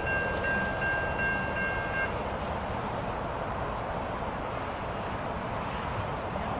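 Amtrak Northeast Regional passenger train rolling past at low speed, a steady rumble and hiss. A steady high-pitched squeal of several tones sounds over it and stops about two seconds in.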